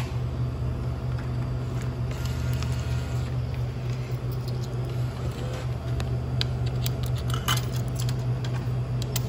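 A steady low machine hum, with scattered small clicks and scratches, mostly in the second half.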